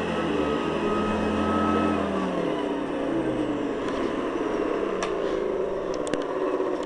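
Hoover Guardsman upright vacuum running, its motor pitch sliding down about two seconds in, followed by a few sharp clicks near the end.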